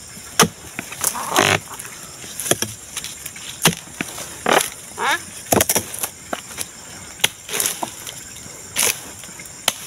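Long-handled steel harvesting chisel jabbing at the stalk of an oil palm fruit bunch: a string of sharp, irregular chops about once a second.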